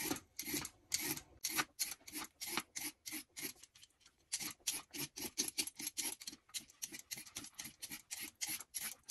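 A Y-peeler's metal blade scraping the skin off a red carrot in quick, even strokes, about four a second, with a brief pause about four seconds in.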